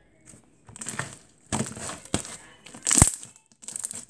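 Thick slime being stretched and squished by hand, squelching in irregular bursts, with sharp pops of trapped air bubbles bursting about two and three seconds in, the second the loudest.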